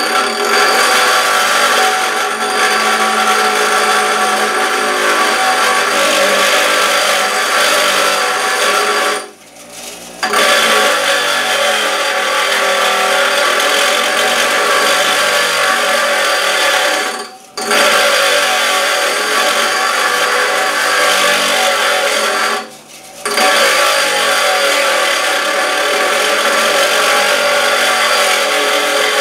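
A power grinder grinding down the end of an old door-hinge pin so it sits flush with the hinge, giving a steady loud grinding noise. The grinding stops briefly three times and then picks up again.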